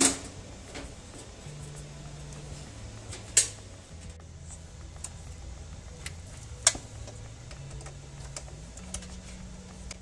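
Clicks and knocks of a Dell OptiPlex 990 desktop's metal case being opened and handled: a loud snap as the side-panel latch is pulled, two more loud knocks about three and a half and six and a half seconds in, and lighter ticks between as hands work at the parts inside.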